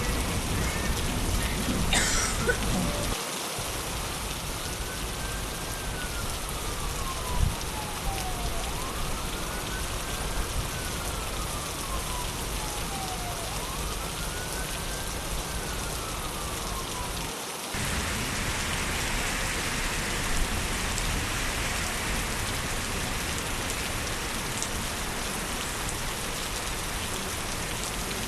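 Steady rain falling on a city street. A siren wails faintly in the background through three slow rise-and-fall cycles in the first half. The rain's sound changes abruptly about two-thirds of the way through.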